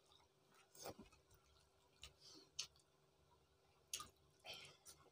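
Near silence broken by a handful of faint clicks and smacks from people eating rice and egg curry by hand: chewing and fingers working rice on steel plates.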